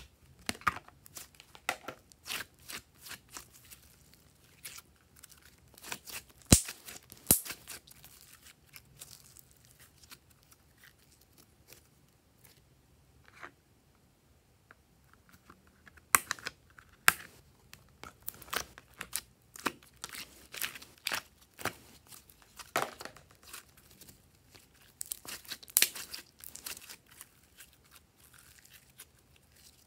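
Glossy slime being squeezed, pressed out of a thin clear plastic mold and stretched by hand: irregular sticky pops, clicks and crackles, with a few sharper snaps and the soft plastic mold crinkling.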